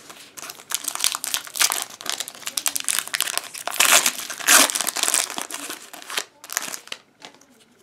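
Foil wrapper of a Pokémon TCG Team Up booster pack crinkling in the hands and being torn open. It is a dense run of crackles, loudest about four seconds in, that stops near the seven-second mark.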